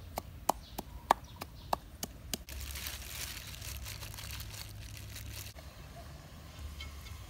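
Wooden pestle pounding in a clay mortar, sharp knocks about three times a second for the first two and a half seconds. It cuts to a steady crinkling rustle of plastic-gloved hands kneading chicken pieces in a bowl for about three seconds, then to a quieter stretch.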